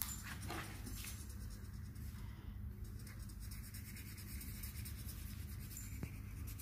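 Felt-tip marker rubbing on paper as a picture is coloured in, over a steady low hum.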